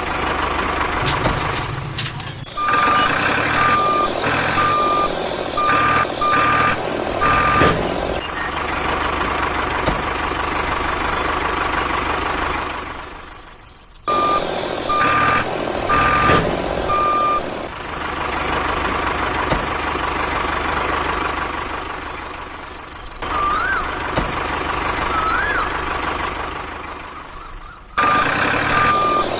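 Truck reversing alarm beeping in spells, about two beeps a second, over a steady running engine, with sudden cuts between takes.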